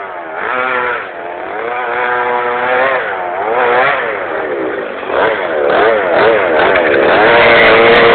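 Radio-controlled FG monster truck's small two-stroke petrol engine revving up and down repeatedly under throttle, growing louder in the second half.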